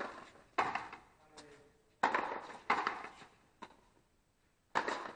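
Frontenis rally: a rubber ball struck by stringed rackets and smacking against the fronton's front wall. The sharp cracks come mostly in pairs about two-thirds of a second apart, each followed by a short echo off the walls.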